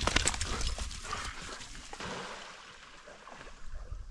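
Wet yellow Labrador retriever shaking water from its coat: a rapid run of flapping ear and collar slaps with spray that dies away within the first second, then quieter rustling.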